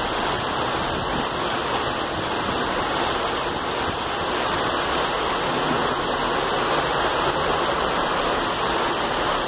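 Heavy rain pouring down and floodwater rushing along a flooded street, a steady, unbroken rushing noise.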